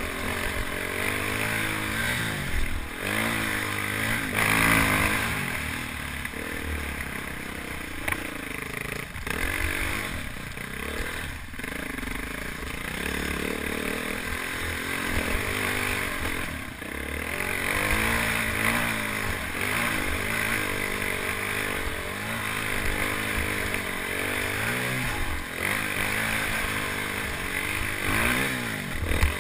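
Single-cylinder dual-sport motorcycle engine climbing a rough dirt trail, its pitch rising and falling again and again as the throttle opens and closes. Wind rushes over the helmet-mounted microphone.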